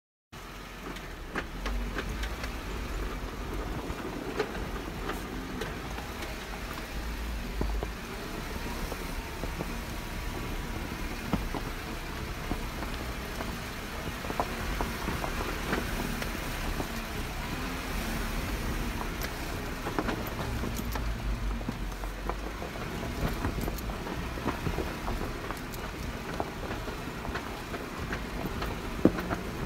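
Jeep driving off-road: a steady low rumble with scattered small knocks and rattles.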